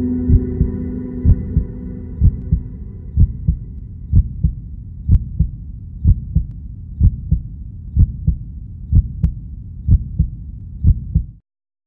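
Heartbeat sound effect: a low double thump about once a second, under a steady droning chord that fades out over the first three seconds. It cuts off suddenly just before the end.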